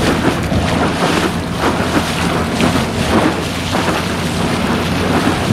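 Electric-motor paddle board running across choppy sea: water rushing and splashing along the hull, with wind buffeting the microphone and a low steady hum underneath.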